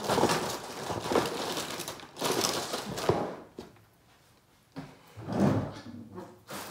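Rustling and knocking of objects being handled and moved about, coming in three irregular bursts with a short lull partway through.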